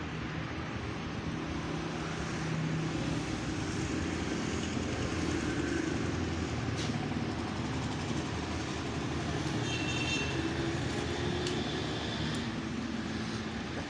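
A vehicle engine running steadily with a low drone.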